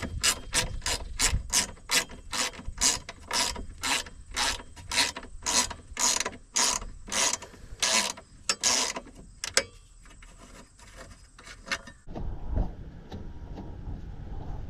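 Hand ratchet wrench clicking as it is swung back and forth, about two to three strokes a second, stopping about nine seconds in.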